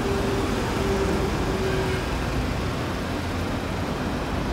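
Vehicle engine idling steadily: a low rumble, with a faint steady hum over the first two seconds.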